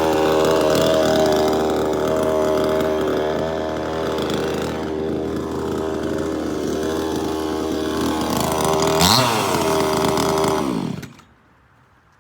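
52cc Chinese '9800' two-stroke chainsaw running at speed. Near the end it revs up and down once quickly, then is shut off and dies away about eleven seconds in.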